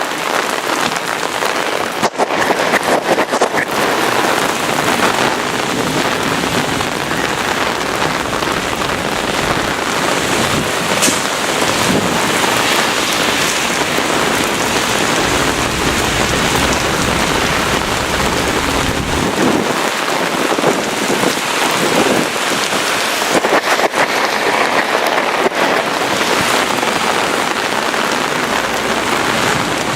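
Heavy thunderstorm downpour: rain pouring hard and steadily, driven by strong gusty wind. From about twelve to nineteen seconds in there is a deeper rumble.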